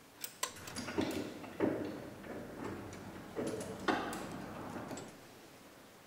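Metal tools and steel parts clinking and knocking during hand work on a motorcycle's chain-drive transmission: half a dozen sharp clanks at uneven times with short scrapes and ringing between them, dying down in the last couple of seconds.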